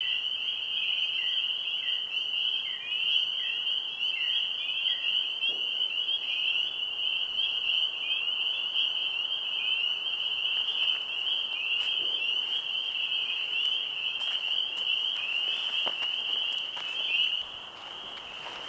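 A chorus of frogs calling: many high, short peeping calls overlapping into a continuous pulsing chorus. In the first few seconds there is also a row of lower, shorter calls, and the chorus gets quieter a little before the end.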